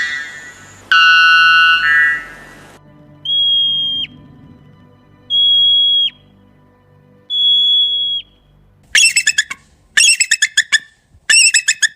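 A series of strange animal calls: a loud sustained call about a second in, then three high steady whistles, each ending in a quick downward drop, then rapid runs of short, sharp yelping calls near the end.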